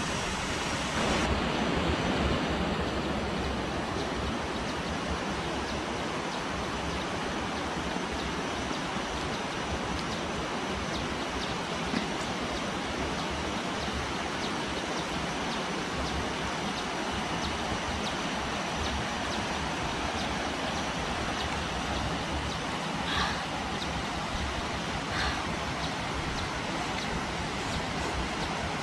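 Steady rushing noise with a few faint clicks in the second half.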